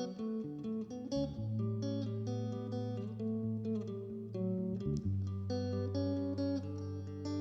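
Instrumental music: a guitar picking a run of single notes over long held bass notes, with no singing.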